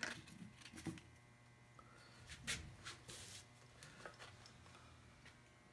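A few faint taps and rustles from a stiff paper template being handled and pressed against a carved wooden half hull, with a brief scrape about three seconds in.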